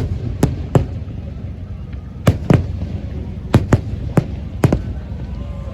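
Aerial fireworks shells bursting: a string of about nine sharp bangs, several in quick pairs, over a steady low rumble. The bangs stop about a second before the end.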